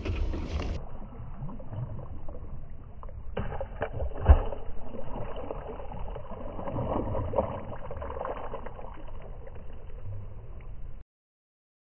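A released striped bass splashing into the water beside the boat, with one sharp thump about four seconds in, amid muffled wind and water noise. The sound cuts out shortly before the end.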